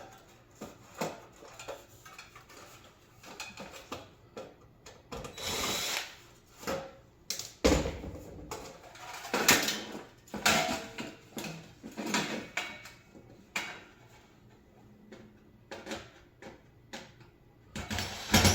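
Power drill running in short bursts, backing screws out of a coffee warmer, between scattered clanks and knocks of metal parts being handled.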